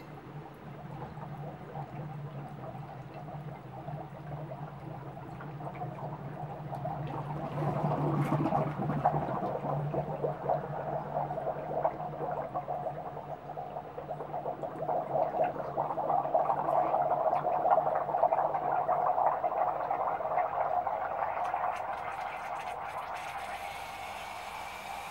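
Lit sparkler burning underwater in a glass of water, fizzing and bubbling with many rapid small pops as its gases escape through the water. It swells about a third of the way in, swells again past the middle, then eases off near the end.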